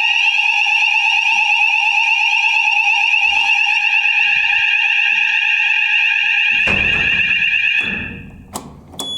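Electronic fire alarm sounder sounding a loud, continuous high-pitched tone with a fast flutter, cutting off about eight seconds in, followed by a few sharp clicks.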